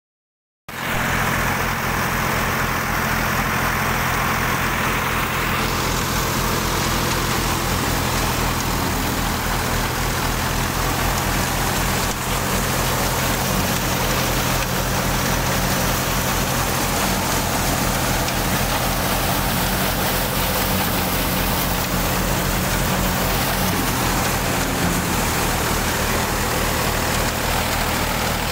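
Ford 3600 tractor engine running steadily under load, driving a wheat thresher, with the thresher's spinning drum adding a continuous hissing whir over the engine's low, even beat.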